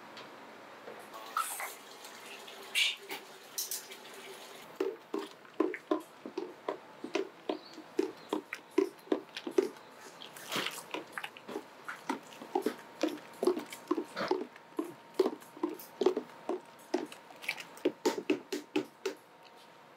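Wooden spatula stirring thick soybean liquid for tofu in an aluminium pot, scraping and knocking against the pot with each stroke while the liquid sloshes. The strokes settle into a steady rhythm of about two a second from about five seconds in.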